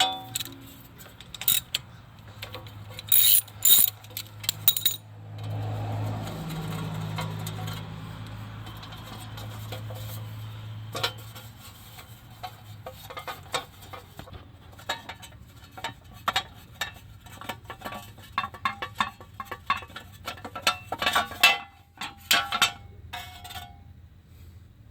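Metal hand tools clinking and clicking against steel as a dust shield's fasteners are worked loose at a car's front hub. A steadier hum runs for several seconds a few seconds in, and later a long run of quick, close clicks.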